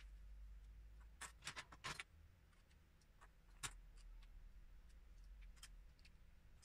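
Faint clicks and taps of small plastic Lego bricks being handled and pressed together: a quick cluster of clicks about a second in, then a single sharper click a little later, over a low steady hum.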